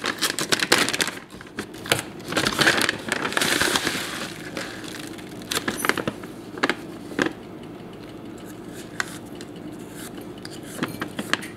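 A plastic bag of oats crinkling and rustling while oats are scooped out with a plastic measuring cup and poured into a bowl, with quick clicks and rattles of dry flakes. It goes quieter about halfway through, leaving a few scattered clicks.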